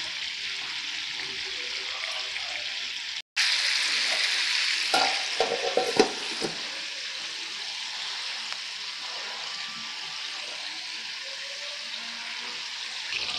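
Marinated chicken pieces sizzling in shallow oil in a nonstick frying pan on a low flame. Around five to six seconds in come a few knocks as the glass lid is set on and handled, and after that the sizzle goes on, a little quieter, under the lid.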